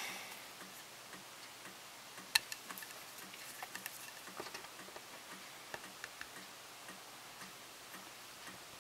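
Quiet handling of soft-vinyl kit parts and tools: scattered light clicks and taps, the sharpest about two and a half seconds in, over a faint, evenly repeating ticking.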